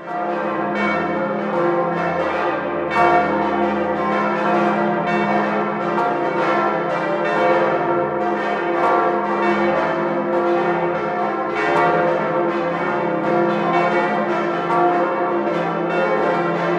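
Full peal of St. Peter's church bells in Munich, swinging and ringing together, heard close up inside the bell tower. Many strokes overlap continuously over a deep, sustained hum from the low-toned Jubilee bell, which is ringing again after a fatigue crack was repaired.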